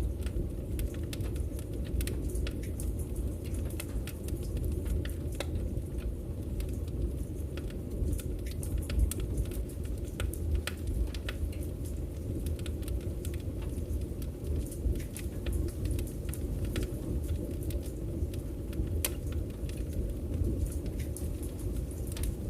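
Wood fire crackling: a steady low rumble of flames with frequent small irregular pops and snaps.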